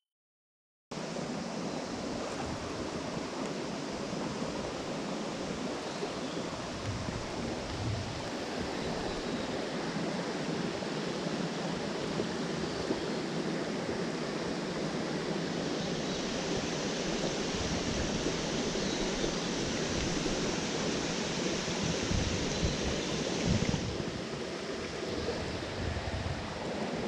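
Rushing water of a mountain stream, a steady even roar that cuts in abruptly about a second in.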